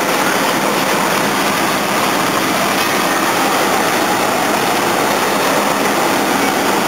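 Fire apparatus engines running, a loud steady noise.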